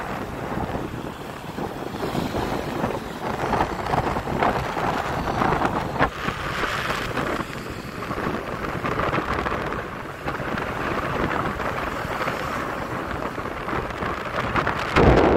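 Wind buffeting the microphone of a phone filming from a moving vehicle, over the steady noise of city road traffic. A stronger gust hits near the end.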